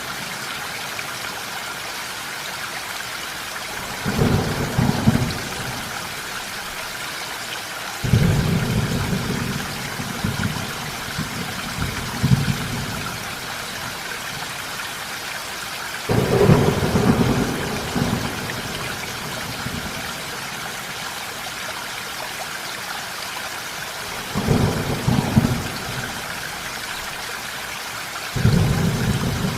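Steady rain with thunder rolling in low rumbles about five times, each lasting a second or more.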